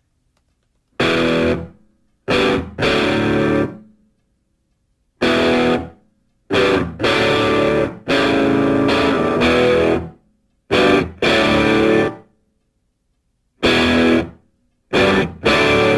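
Guitar music played in short stop-start phrases, each one cut off abruptly by a silent gap, about ten times over. The guitar has a distorted, effects-laden tone.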